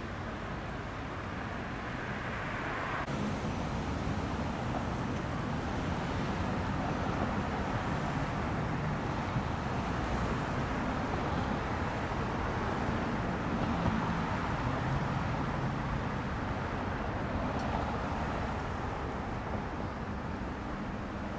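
Steady road traffic noise, a little louder from about three seconds in.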